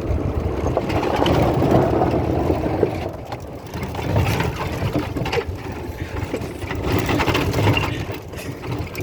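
Golf cart driving over rough ground, its body rattling and clattering with many small knocks as it goes.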